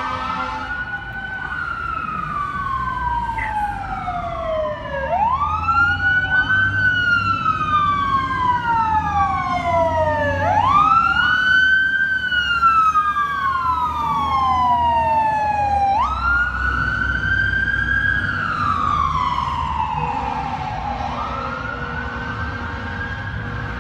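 LAFD fire engine's wail siren, each cycle rising quickly then falling slowly, repeating about every five and a half seconds. It grows louder toward the middle and fades toward the end, over a low rumble of engines and traffic.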